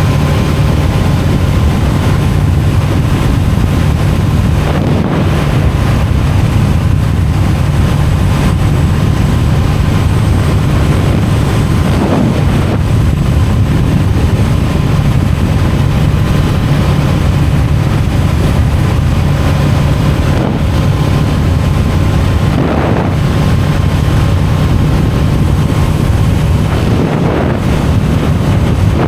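Honda Rebel 500's parallel-twin engine running at a steady cruise, with wind rushing over the helmet-mounted microphone.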